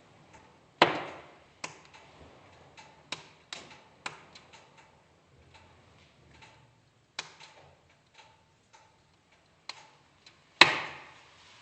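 Wood fire crackling in a fireplace: irregular small snaps, with two loud pops about a second in and near the end.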